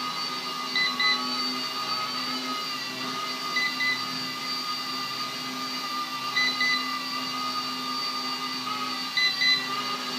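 RC Era A61 mini Airwolf micro RC helicopter flying, its small electric main and tail motors and rotors giving a steady high whine. A short double beep repeats about every three seconds.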